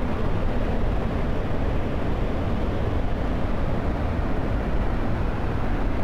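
Large waterfall in heavy flood flow: a steady, deep rush of falling water, heaviest in the low end.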